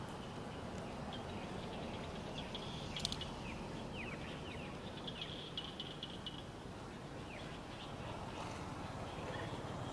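Outdoor forest ambience: a steady background hiss with scattered short, high chirps and quick falling calls from small animals, and a brief cluster of sharp clicks about three seconds in.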